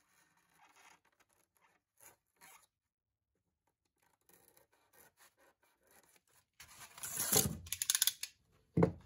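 Utility knife slicing through the thin foam tabs that hold a milled foam casting pattern in its stock: faint scratchy cuts at first, then louder scraping and tearing of foam for about two seconds near the end as the pattern is pulled free, and one more short scrape just before the end.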